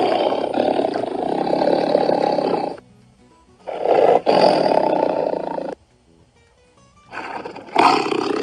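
Tiger roaring: three long roars, the first already under way, the second about three and a half seconds in, the third starting near the end.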